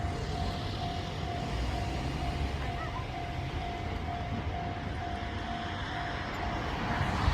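Railway level crossing warning bell ringing, a steady repeated electronic tone about twice a second, over the rumble of a train running past.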